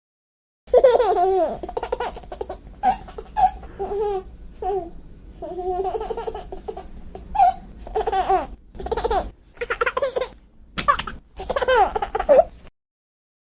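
Baby laughing in a long run of short, high-pitched bursts and giggles with brief pauses. It starts about a second in and stops shortly before the end.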